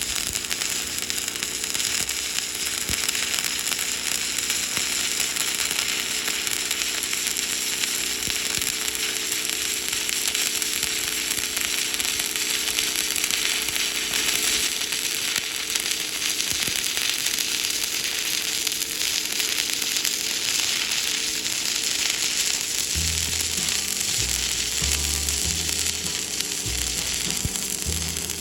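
Stick-welding arc burning steadily as a coated electrode is run on steel, a continuous dense hiss that starts and stops abruptly. Background music plays faintly underneath.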